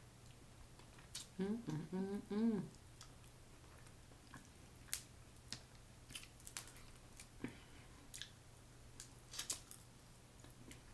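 Snow crab legs cracked and snapped apart by hand, giving scattered short sharp clicks of breaking shell, with mouth sounds of chewing and sucking out the meat. A short hummed "mm-mm" of enjoyment comes about a second and a half in.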